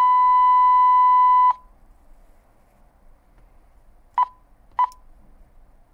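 ICOM mobile two-way radio beeping: a long steady beep that stops about a second and a half in, then two short key beeps about half a second apart as its front-panel buttons are pressed.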